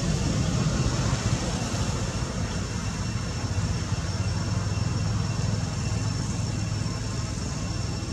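Steady low outdoor background rumble with a faint, steady high-pitched whine running over it.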